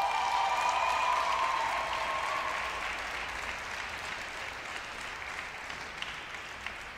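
Audience applauding, with the last held note of the music fading out in the first two or three seconds; the applause slowly dies down.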